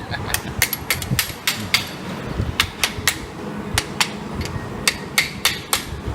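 Hand tools working on a Pontiac 389 V8 block during teardown: a quick, uneven series of sharp metal clicks and taps, about three a second.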